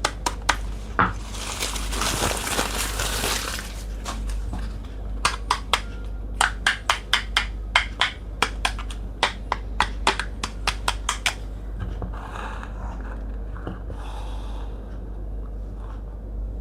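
Small plastic toy kitchen pieces being handled, clicking and tapping in a quick run of sharp clicks, with rustling about a second in and softer rustling near the end. A steady low hum lies underneath.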